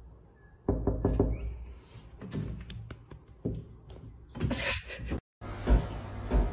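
Irregular knocks and taps of a hand on a window pane, in uneven clusters. After a short break come two low thumps over a steady hum.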